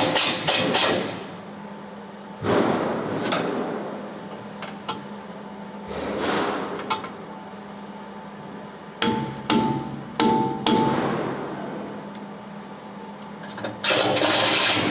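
Hammer blows on steel, in scattered groups of strikes with a short metallic ring after some of them, and a quick run of blows near the end.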